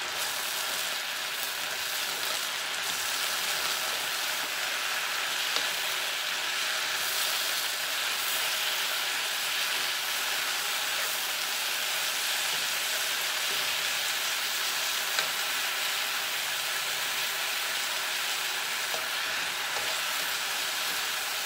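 Chopped mushrooms and beef strips sizzling steadily in a hot wok as they are stirred with a spatula, with a couple of brief clicks from the spatula against the pan.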